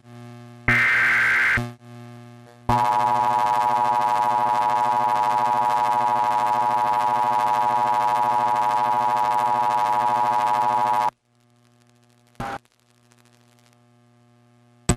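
Emergency Alert System tones: a short screech of digital header data about a second in, then the steady attention tone sounding for about eight seconds and cutting off abruptly, over a low hum.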